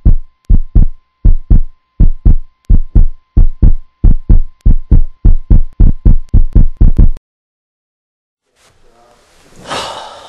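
Heartbeat sound effect: loud, steady paired lub-dub thumps, about one and a half a second, that stop abruptly about seven seconds in. A short rushing noise swells and fades near the end.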